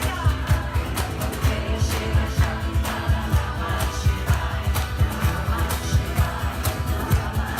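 Live band music with a quick, steady drum beat under sustained pitched instruments.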